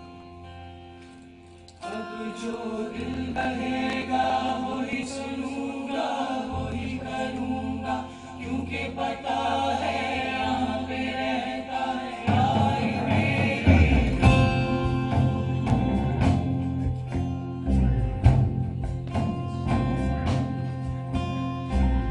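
Live Sufi ensemble music. It opens on a soft held chord. About two seconds in, wordless choir-like voices and instruments swell in, and about twelve seconds in, bass and drums join and the music grows fuller.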